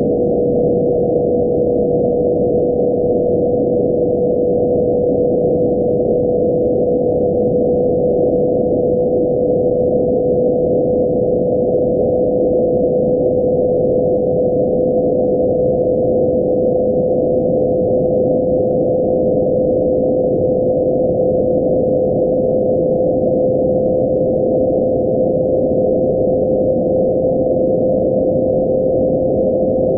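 Radio receiver audio of the IMAGE satellite's 2272.5 MHz carrier: a single steady tone over constant receiver hiss, its pitch creeping slowly upward as the Doppler shift changes.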